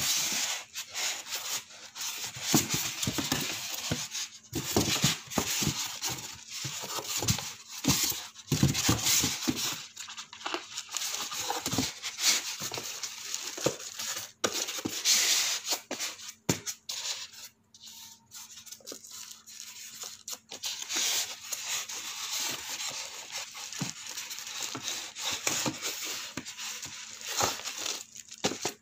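Clear plastic wrapping and paper manuals crinkling and rustling in bursts as they are handled and pulled out through a styrofoam packing insert, with scraping against the foam. The noise eases off for a few seconds a little past the middle, then picks up again.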